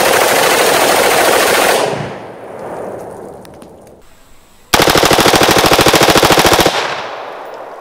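Automatic fire from an AR-15-pattern rifle with a Bravo Company 16-inch mid-length upper on a full-auto lower: two long bursts of rapid shots, each about two seconds long. The first comes at the start and the second about five seconds in, and each fades into an echo.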